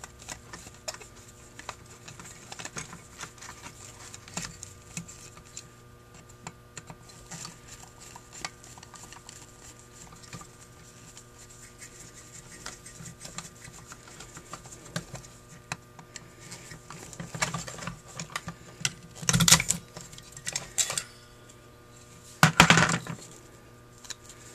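Small metal parts of a Holley 1904 carburetor being handled and taken apart by hand: scattered light clicks and clinks of metal, with two louder rattles of clatter near the end.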